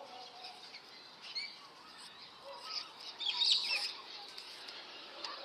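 Birds chirping, a few short calls about a second in and a busier flurry of calls around three seconds in, over faint outdoor background hiss.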